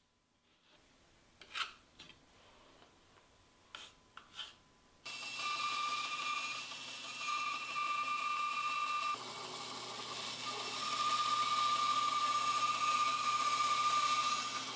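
A few short pencil scratches marking out plywood, then from about five seconds in a bandsaw running and cutting through plywood: a steady whine over the rasp of the blade in the wood, loudest near the end.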